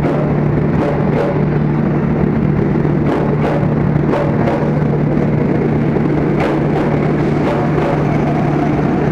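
Ex-JR East 205 series electric commuter train pulling out alongside the platform. A steady low hum runs under wheel clacks over the rail joints, coming roughly twice a second.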